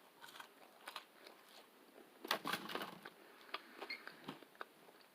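Faint chewing of a chicken sandwich close to the microphone: scattered small crunches and mouth clicks, with a louder bout of crunching about two seconds in.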